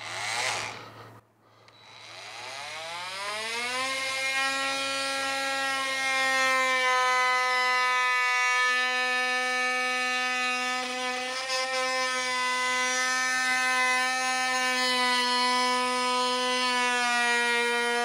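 Parkside 20V cordless oscillating multitool starting up, its whine rising in pitch about two seconds in, then running at a steady buzz while its round blade cuts into a pine board.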